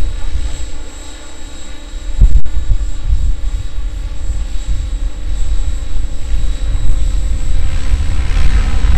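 Radio-controlled model helicopter flying, its rotor noise and steady motor whine mixed with heavy wind rumble on the microphone.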